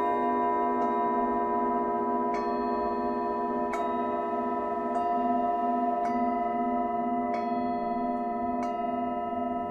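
Tibetan singing bowls ringing together in long overlapping tones, the low tone wavering in a slow pulse. The bowls are struck again about every second and a half, seven light strikes in all, each adding a bright attack over the ringing.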